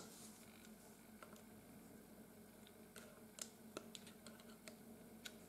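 Faint scattered clicks and taps of pliers and small nuts and bolts being worked on a plastic frame, most of them in the second half, over a faint steady hum.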